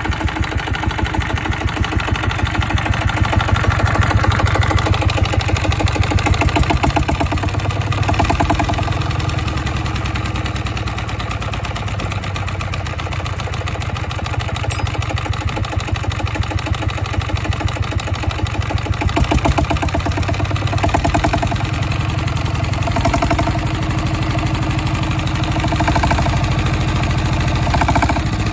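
Chinese SD1110 single-cylinder horizontal diesel engine running with a fast, even chugging. Its loudness swells and eases a few times as its hand speed-control lever is moved.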